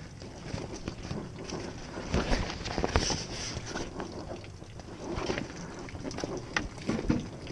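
Fabric outboard-motor cover rustling and scraping in irregular bursts as it is pulled by hand down over the motor's cowling, close to the microphone, with a few louder bumps.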